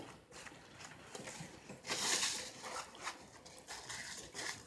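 Quiet close-miked eating sounds: chewing, with food being picked apart by hand, and a brief crackly rustle about two seconds in.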